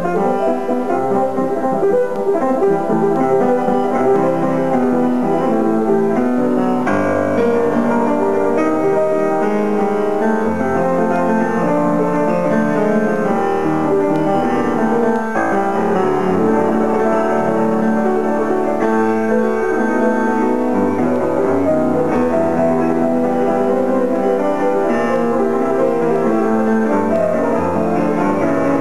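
A Broadwood rosewood pianoforte being played: a continuous run of notes at a steady level.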